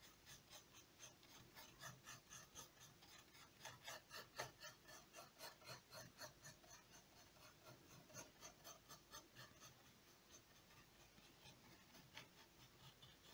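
Faint scratchy strokes of a paintbrush loaded with acrylic paint being worked across a painting board, several strokes a second, easing off near the end.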